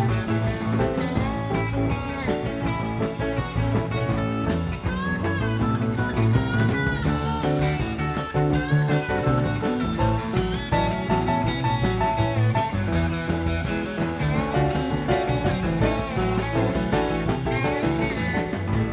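Live blues-rock band playing an instrumental passage: an electric lead guitar plays bending notes over bass, drum kit and rhythm guitar.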